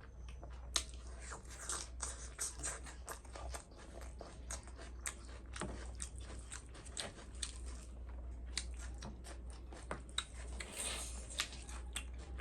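A person chewing and eating food close to the microphone, with many quick, irregular mouth clicks, over a steady low hum.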